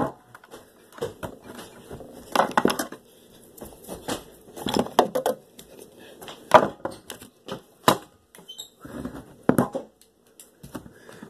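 Handling a cardboard tube can of refrigerated biscuit dough and a pair of scissors on a table: scattered knocks, taps, scrapes and rustles, with two sharp clicks about six and a half and eight seconds in.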